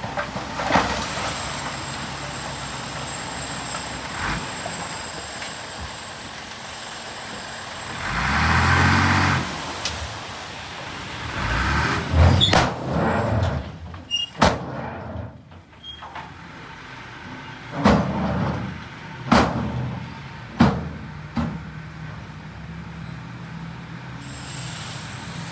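Heavy vehicle engine running steadily. About eight seconds in it swells with a burst of hiss, and over the following stretch several sharp knocks or clanks stand out, the loudest events.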